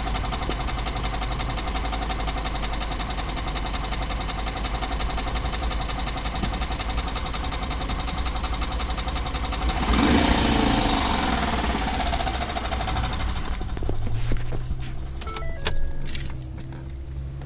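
2011 Ford F-150 3.5 L EcoBoost V6 running with a rapid, steady knocking rattle. It swells louder for a moment about ten seconds in and drops quieter near the end, with a few sharp clicks. The knock began after a hard run to 4–5,000 rpm, and replacing the mechanical fuel pump has not cured it.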